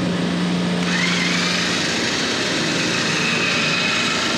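Electric hoist motor running steadily while its pendant button is held, with a whine that rises in pitch about a second in and then holds.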